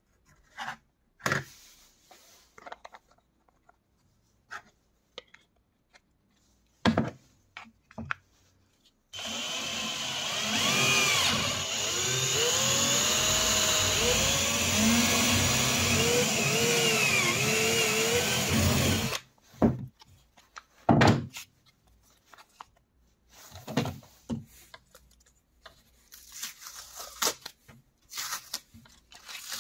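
Bench drill press boring holes through a Kydex sheet: a steady run of about ten seconds in the middle, its pitch wavering as the bit cuts the plastic. Light taps and clicks come before it, and paper rustles near the end as a template is peeled off.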